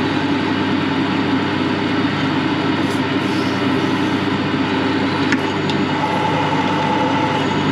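Metal lathe running while an 8 mm drill bit bores into a 5/8-inch steel bolt: a loud, steady machining noise. About three seconds in, an aerosol lubricant is sprayed onto the work with a short hiss, and a thin squeal rises about six seconds in.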